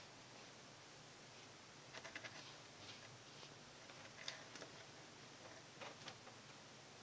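Near silence broken by faint soft taps and scuffs in small clusters, about two seconds in, around four seconds in and again near the end: a cat's paws patting and scrabbling at a wall.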